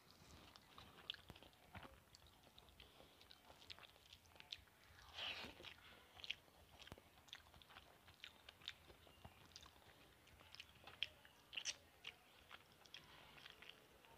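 Faint close-up chewing and mouth sounds of a person eating rice and fish by hand: a scatter of small wet clicks and smacks, with one longer, louder mouth sound about five seconds in.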